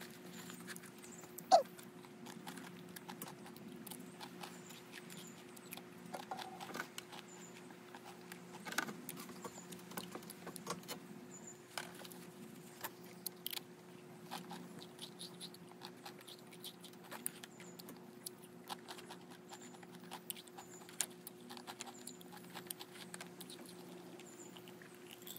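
Light scattered clicks and taps of cutlery against a plate during a meal, over a steady low hum, with one sharper click about a second and a half in.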